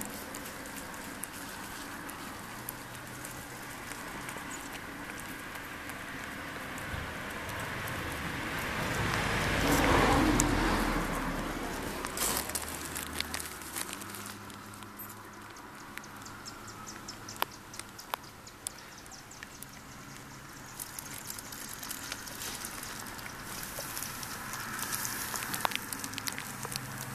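Rustling and rubbing noise from handling close to the microphone against fur and bedding, with scattered small clicks and a louder swell about ten seconds in.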